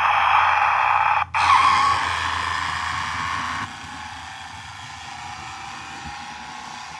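Road Rippers toy 4x4 SUV's battery motor and gears whirring as it drives off across a hard floor, with a brief break a little over a second in. The whir drops to a quieter steady level a bit past halfway as the toy gets farther away.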